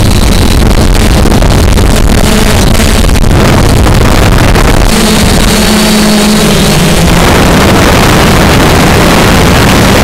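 Heavy wind buffeting the microphone of a small camera strapped to an Aosenma CG035 quadcopter, over the steady hum of its motors and propellers. A higher motor whine rises about five seconds in and fades before seven.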